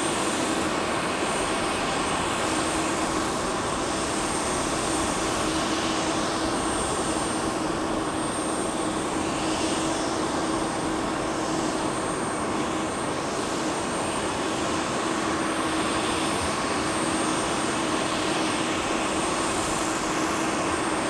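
Jet aircraft turbine running steadily: an even rushing noise with a constant hum and a faint high whine, unchanging throughout.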